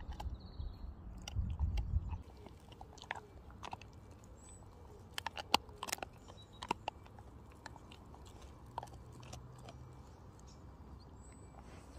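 Rottweiler gnawing a dried doe-leg chew, with irregular crunches and cracks of bone and hide. The loudest cracks come in a short cluster about five to six seconds in. A low rumble fills the first two seconds.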